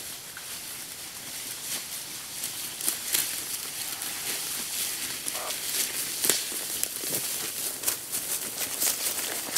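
Footsteps crunching through dry leaves and pine litter, coming closer and getting louder until they pass close by.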